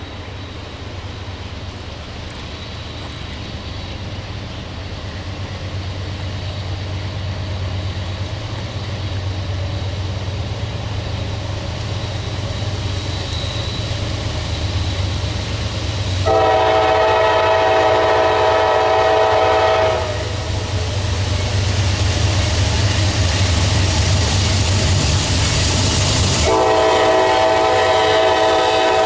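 Approaching train, its low rumble growing steadily louder, then the locomotive's air horn sounding a chord of several notes: one blast of about four seconds a little past halfway, and a second long blast starting near the end.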